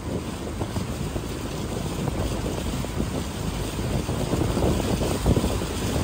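Wind buffeting the microphone at the bow of a moving wooden river boat, over a steady low rumble from the boat and the water.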